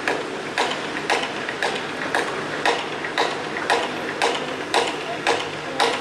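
Hammer blows on a construction site, struck in an even rhythm of about two a second, over a steady low hum of machinery.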